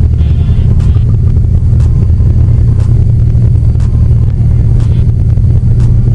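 Ikarus C42 microlight's engine and propeller droning steadily in flight, heard from inside the cockpit.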